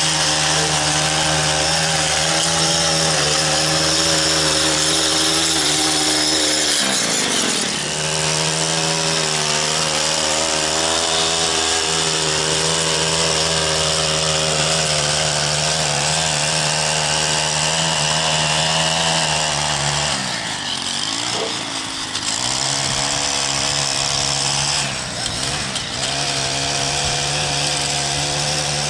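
Gas stick edger running at high speed, its blade cutting a line in the turf along a concrete sidewalk. The engine note dips briefly about seven seconds in, and twice more in the last third.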